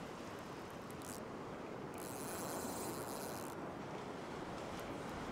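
Surf breaking and washing up a sandy beach, with wind on the microphone; a brief higher hiss rises about two seconds in and fades a second and a half later.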